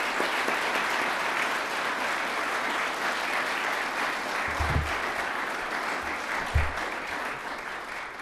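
A large indoor audience applauding steadily, easing off near the end. Two low thumps come about halfway through and a couple of seconds later.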